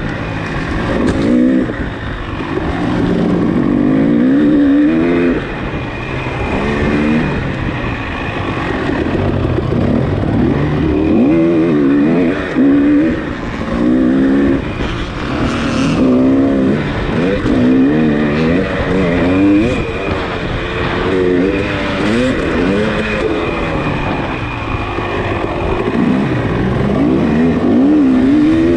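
Off-road racing engine under hard use, its pitch repeatedly climbing and dropping as it is revved, shifted and backed off through the course. A thin, steady high tone runs underneath.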